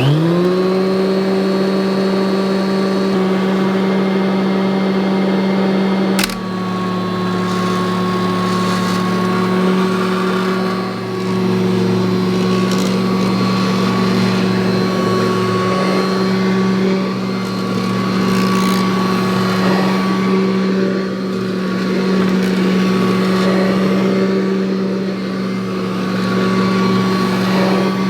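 1984 Kirby Heritage upright vacuum cleaner switched on, its motor spinning up to speed in a rising whine within a moment, then running steadily with a hum and whine. A sharp click comes about six seconds in, after which the tone shifts slightly, and the sound wavers a little as the vacuum is worked.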